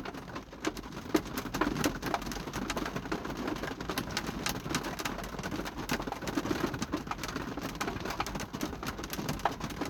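Rain on a surface: many irregular light taps over a steady hiss.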